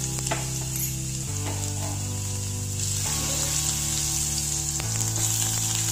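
Chopped garlic sizzling in hot ghee and oil in a stainless steel pan, stirred with a silicone spatula; the sizzle grows a little about halfway through. Background music with long held chords plays underneath.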